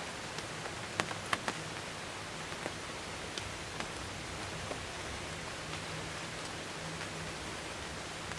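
Light rain: a steady hiss with scattered drops ticking close by, a few sharper ones just after a second in.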